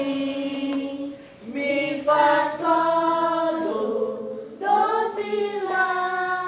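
A group of children singing a sol-fa (do-re-mi) exercise in unison, without accompaniment: a string of held notes that step from one pitch to the next, with a brief breath after the first note.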